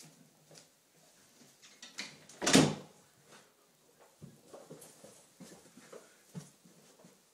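One loud thump about two and a half seconds in, among faint scattered knocks and rustles.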